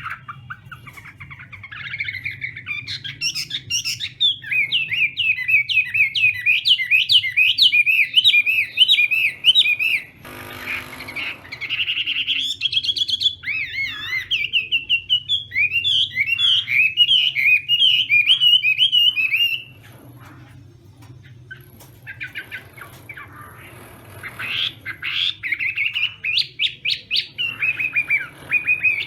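Chinese hwamei (hoạ mi) singing loudly in long phrases of rapid, repeated, warbling notes. The song breaks off for a few seconds about two-thirds of the way in, then starts again.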